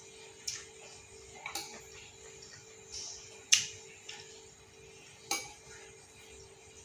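Cutlery clinking against a bowl of instant noodles: a few separate sharp clinks, the loudest about three and a half seconds in.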